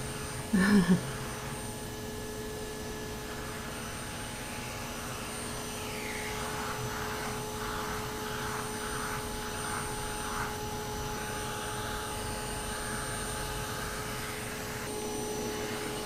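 Canister vacuum cleaner running steadily with a fixed whine, muffled by being shut in a closet, pulling air through a long hose and deshedding rake attachment. From about six seconds in, a run of rhythmic rasping strokes comes as the rake is drawn through a long-haired Persian cat's coat, sucking up loose fur.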